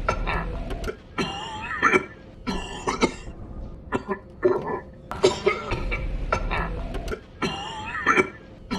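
General Grievous's raspy, wheezing cough sound effect: fits of short harsh coughs with throaty rasps, the same coughing sequence seeming to repeat as an edited loop.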